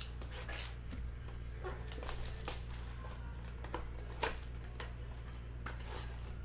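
Plastic shrink wrap crinkling and tearing and a cardboard trading-card blaster box being opened by hand: a string of short crackles and snaps, the sharpest about four seconds in, over a steady low hum.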